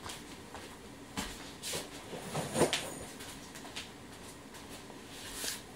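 A few faint knocks and rustles from a person moving about the room, over quiet room tone, most of them in the middle.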